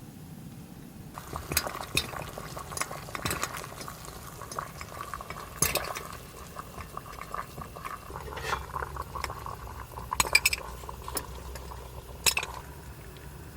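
Cooking sounds: a steady hiss, like food boiling or sizzling, starts about a second in and stops shortly before the end. Sharp clinks and taps of utensils and dishes are scattered through it, and a low hum joins in for the second half.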